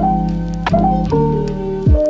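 Background music: mellow sustained keyboard chords over a slow beat, with a deep kick drum that drops in pitch at the start and again near the end, and a sharp snare hit between them.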